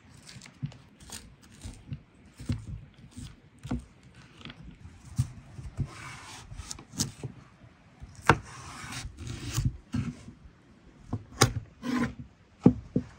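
Food-preparation handling noises: irregular light knocks and clicks of wood and utensils, with two longer rubbing scrapes about six and nine seconds in.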